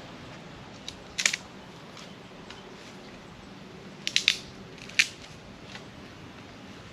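A few sharp snaps or clicks, like twigs breaking or a blade clipping: a quick triple about a second in, another quick cluster about four seconds in, and a single loud snap about five seconds in.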